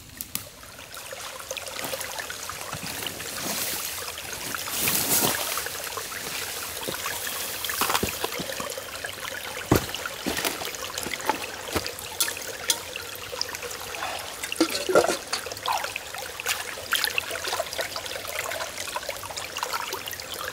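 A small shallow creek trickling over rocks, with scattered sharp clicks and knocks through the water's sound, the strongest about ten seconds in.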